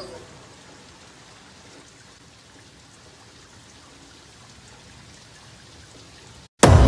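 Faint steady rain hiss. Near the end it cuts out to a brief silence, then a sudden loud hit comes in.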